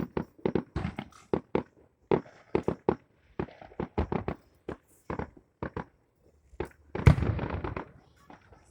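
Fireworks going off: a run of sharp, irregular pops, then a louder bang about seven seconds in followed by about a second of crackling.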